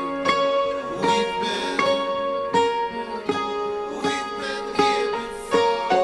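Background music: an instrumental passage of plucked notes, a new note about every three quarters of a second, with no singing.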